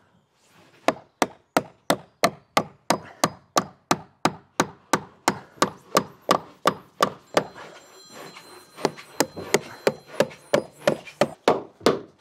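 Hammer driving polytop nails through a plastic fascia board into the timber frame: a steady run of sharp strikes, about three a second, a short pause about seven and a half seconds in, then another run of strikes.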